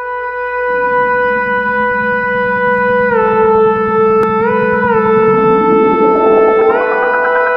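Background music: a sustained synthetic lead tone stepping between a few nearby pitches over a lower accompaniment, which swells and rises near the end.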